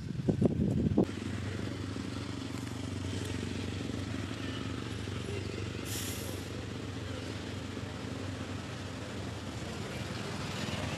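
A motor runs steadily, giving an even low hum. About six seconds in there is a short hiss. Before that, in the first second, louder rustling and knocks stop abruptly.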